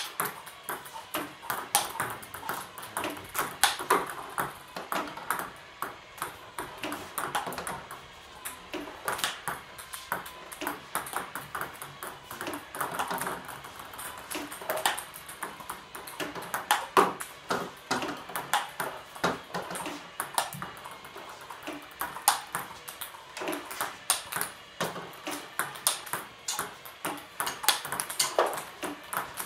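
Table tennis ball being played: a quick, uneven run of sharp clicks, several a second, as the ball is hit by paddles and bounces on the table.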